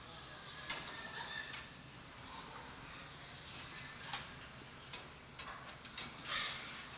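Pigs jostling in the steel pens of an automatic hog sorting scale, with scattered sharp metallic clicks and clanks from the gates and rails over steady barn background noise.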